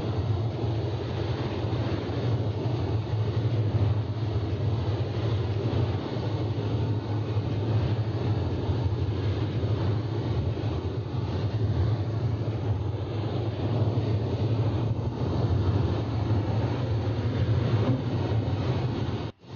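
Ferry under way, heard from the open stern deck: a steady low rumble of the engines and wake, mixed with wind buffeting the microphone.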